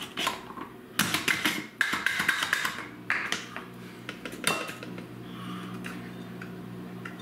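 Hard plastic parts of a Slap Chop hand chopper clicking and knocking as its plunger is handled and worked back onto the cup, with several sharp knocks in the first few seconds. A steady low hum carries on through the second half.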